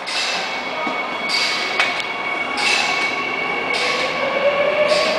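Subway train pulling out of an underground station: steady running hum with a high whine, and a motor tone that starts rising slowly as the train gathers speed near the end.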